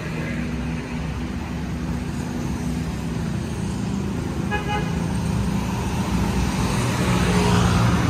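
Road traffic of passing motorbikes and cars, with steady engine hum that grows a little louder near the end. A short vehicle horn toot sounds about halfway through.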